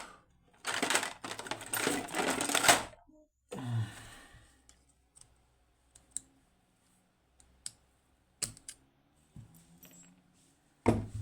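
Small metal tool scraping and prying at the retaining clip of a Securemme K2 dimple lock cylinder, a dense run of scratchy clicks for about two seconds, followed by a few scattered small metallic clicks.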